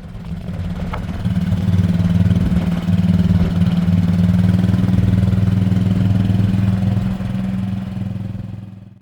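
An engine running steadily at idle, a constant low hum that builds up over the first second or two and then holds even.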